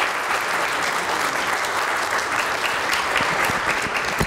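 Audience applauding, a steady crackle of many hands clapping.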